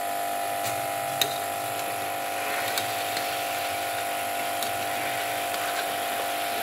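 A steady buzzing hum at one fixed pitch, with a few light clicks of a metal spatula against the pot as chicken pieces are turned in it.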